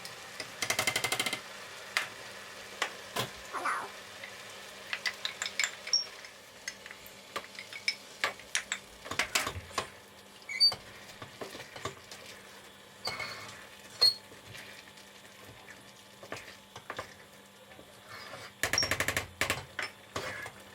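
Metal utensils clinking and scraping against pots and pans during cooking, with many separate clicks. There are two short rattling bursts, about a second in and near the end, over a faint steady hum.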